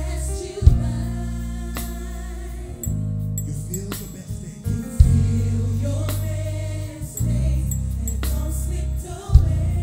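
Live gospel band with choir singing. An electric bass holds long, loud low notes under the voices, and drums play along with three sharp crashes about four and a half seconds apart, marking the phrases.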